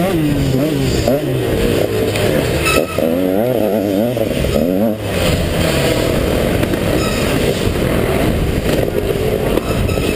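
KTM 150 XC two-stroke dirt bike engine revving hard, its pitch swinging rapidly up and down with the throttle for the first few seconds, then running more steadily.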